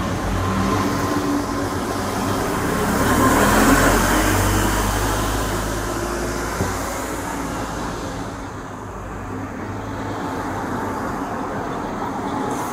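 Street traffic: a motor vehicle passes, its noise swelling to a peak about four seconds in and fading away, over a steady low rumble.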